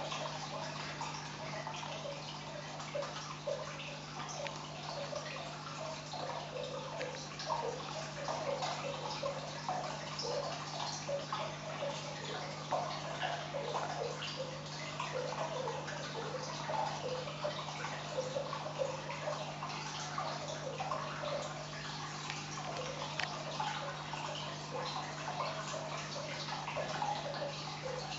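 Dense, irregular pattering of countless tiny ticks and clicks: a swarm of sand hoppers (Talitrus saltator) jumping and landing on a hard terrazzo floor. Under it runs a steady low hum.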